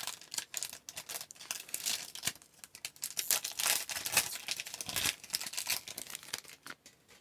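Hockey-card pack wrapper crinkling and tearing as it is opened by hand: a dense, crackly rustle that stops shortly before the end.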